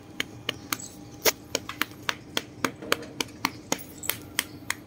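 A hand smacking a cat's back and rump in quick pats, about three to four a second, with one sharper smack a little over a second in.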